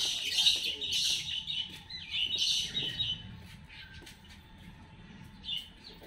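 Brahminy kite giving a few short, hoarse, high-pitched calls in the first half, growing fainter, with one brief call near the end.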